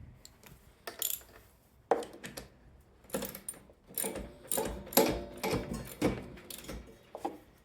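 Socket ratchet clicking in short back-and-forth strokes, about two strokes a second, running a new spark plug into a small mower engine's cylinder head.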